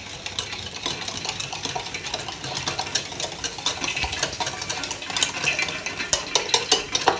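Wire whisk beating a runny egg-and-flour sauce in a ceramic bowl: a steady wet swishing with quick clicks of the wires against the bowl, louder near the end.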